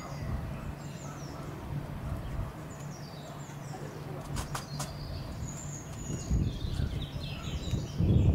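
Small birds chirping and singing over a faint low steady hum, with irregular low rumbling that grows louder near the end.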